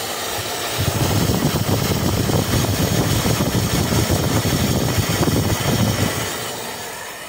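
Electric water pump with a stainless-steel housing running steadily under load, pushing water into a pressure tank as the pressure builds toward its 55 PSI cut-off. The running sound grows louder about a second in and fades near the end.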